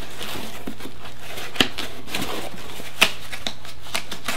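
Hands rummaging in a small cardboard shipping box, with packaging rustling and two sharper knocks about one and a half and three seconds in, over a steady low hum.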